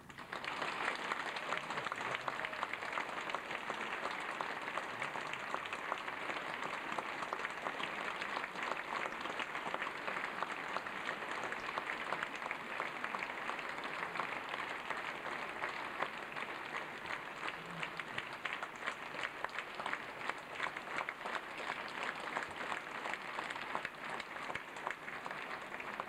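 Large theatre audience applauding steadily, a dense patter of many hands clapping that carries on without a break.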